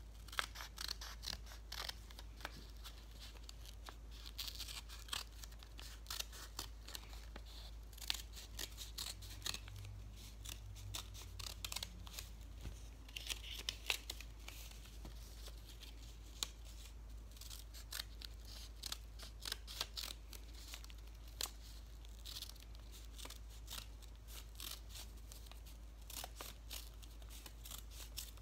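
Scissors snipping through folded black paper: several runs of short, sharp cuts with pauses between, and paper being handled.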